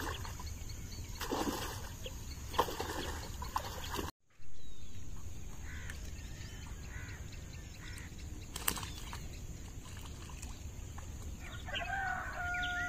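Domestic fowl clucking in the background. Faint water sloshing comes in the first few seconds, and a drawn-out, steady call sounds near the end.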